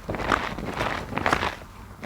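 Wet, sudsy grout sponge being squeezed by hand, squelching and squeaking in two swells about a second apart.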